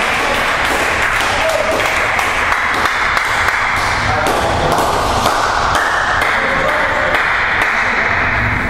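Table tennis ball ticking as it bounces on the floor and table, several light clicks, over a steady loud hubbub of voices in the hall.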